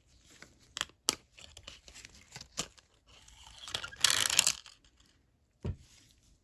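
Retail packaging being opened by hand: crinkling and clicks, then a longer tearing rip about three to four and a half seconds in, and a single knock near the end.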